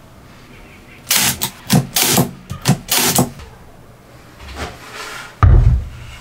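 Plywood parts being handled, a quick run of short scraping, sliding rasps as the pieces rub against each other. Near the end, one loud, deep thump as the assembled plywood piece is set down on a board.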